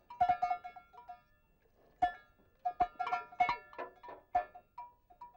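Square metal bell on a donkey's neck clanking in irregular runs of strikes as the donkey drinks, some strikes sharper knocks, with a bright ringing tone.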